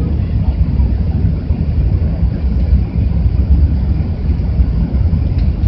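Airbus A380 cabin noise during the climb after takeoff: a steady, deep rumble of the engines and rushing air heard through the fuselage.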